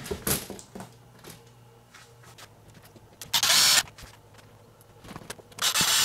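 Electric screwdriver with a hex bit driving a screw into a clear plastic fitting of an acrylic display case, in two short runs: one about three and a half seconds in and one near the end. Before that, a few light knocks of acrylic panels being handled.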